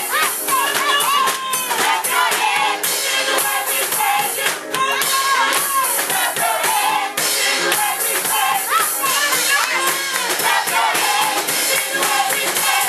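A group of women singing a gospel song together, with hands clapping in time.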